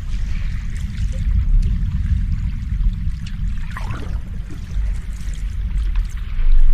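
Ocean waves washing continuously: a deep, steady rumble with a soft hiss above it, swelling louder near the end as a wave comes in.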